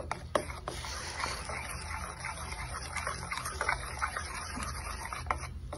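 Steel spoon stirring thick batter in a glass bowl: a run of wet stirring sounds with small clicks and scrapes of the spoon against the glass.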